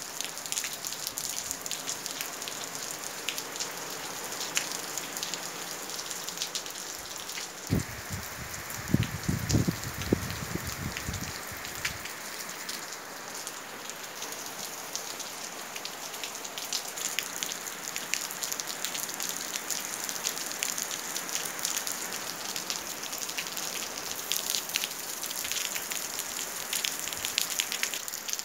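Heavy rain falling on paving and trees: a steady hiss dotted with many sharp drop splashes. From about eight seconds in, a low rumbling with a few thuds lasts several seconds.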